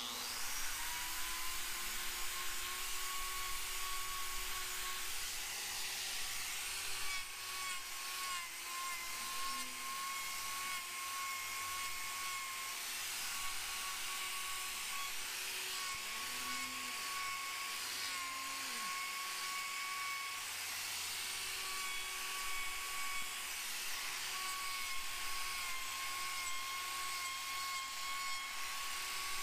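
Electric angle grinder with a hoof-trimming disc spinning up and then running with a steady high whine as it grinds down the sole of a cow's overgrown, twisted claw. Its pitch dips briefly now and then as the disc bites into the horn.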